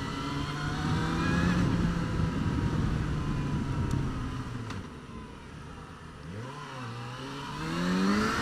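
Motorcycle engine under way, rising in pitch as it pulls away. It eases off to a lower, quieter note around the middle, then revs up again near the end.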